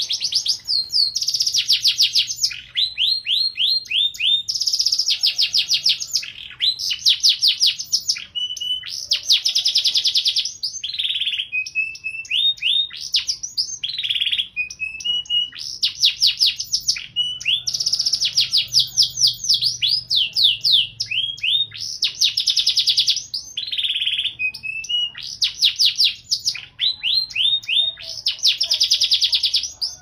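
Domestic canary singing a long, unbroken song: phrases of very fast rolling trills, each about a second long, alternating with slower runs of separate sweeping whistled notes.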